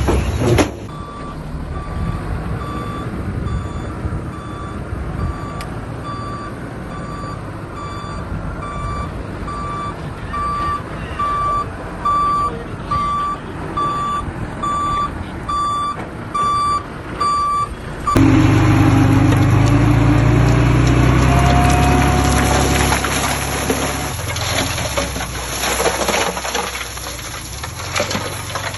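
Reversing alarm of a heavy construction vehicle beeping a little over once a second over the rumble of its engine, the beeps growing louder until they stop about two-thirds of the way through. The engine then runs much louder for several seconds before easing off.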